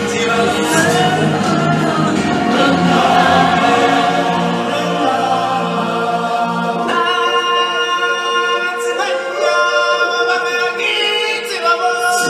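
A choir of live stage singers singing long held notes in harmony. The low backing drops out about seven seconds in, leaving the voices nearly alone.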